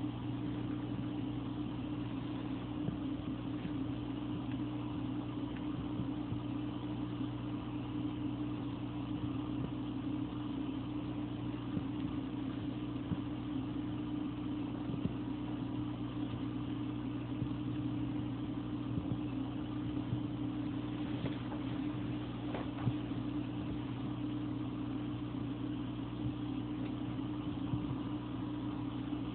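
Aquarium pump or filter humming steadily, a low even drone with a few faint ticks.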